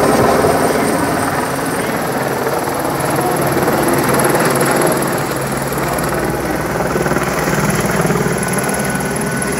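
Helicopter flying low overhead, its rotor and engine running with a loud, steady noise.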